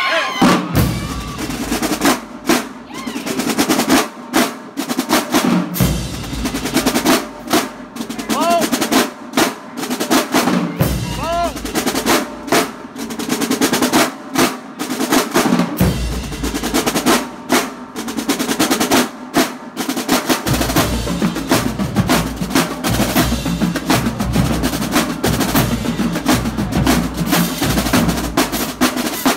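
Marching drumline playing a cadence: a row of snare drums in rapid strokes and rolls, with bass drums booming underneath in stretches, steadily through the last third, and cymbals.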